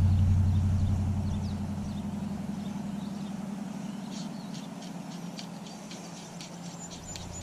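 A steady engine hum that fades away over the first two or three seconds, leaving quiet outdoor background with a few faint high ticks.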